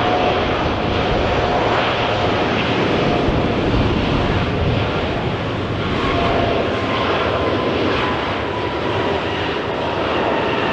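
Jet airliner's engines, a loud, steady rushing noise with faint whining tones that drift slightly lower in pitch.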